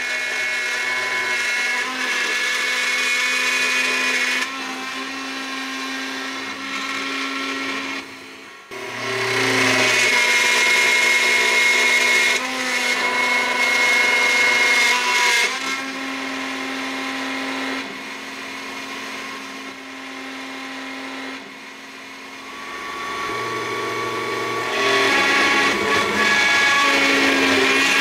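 Mini CNC engraving machine's spindle running with a steady whine while its V-bit routs letters into a wooden board. The cutting noise grows louder and softer in stretches of a few seconds as the bit works, dipping briefly about eight seconds in and again a little past twenty seconds.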